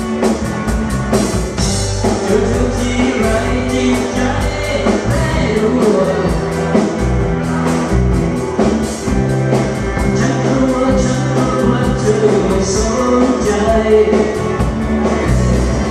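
Live band playing an instrumental passage of a Lao lamvong song: a steady drum beat with a stepping bass line and melody instruments.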